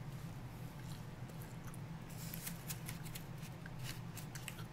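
Chewing a bite of pizza close to the microphone: scattered small mouth clicks and crunches, thicker in the second half, over a steady low hum.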